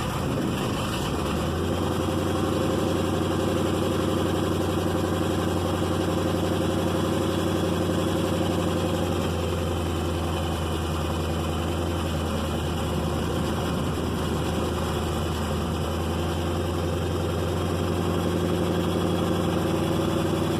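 Chevy 468 cubic-inch big-block V8, freshly cold-started with no choke, running steadily at a fast idle of about 1,400 RPM held up with a little throttle so it won't die.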